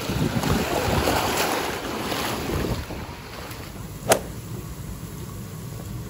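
Wind buffeting the microphone over surf, which drops away about three seconds in to a quieter steady background, with a single sharp click about four seconds in.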